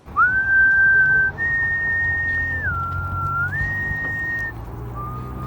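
A person whistling a slow tune in long held notes, sliding smoothly from one pitch to the next.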